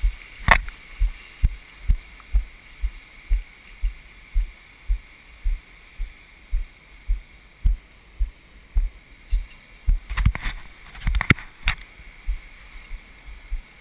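Footfalls of the person carrying the camera, thudding through the camera about twice a second at a walking pace across wet sand, over a steady hiss of surf and wind. A cluster of sharper knocks and rustles comes near the end.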